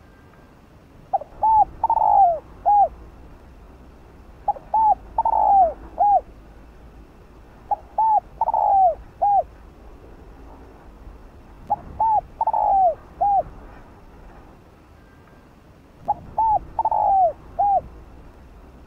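Spotted dove cooing, repeating its song five times about every three to four seconds. Each phrase has four notes: two short ones, a longer one falling in pitch, then a short closing note.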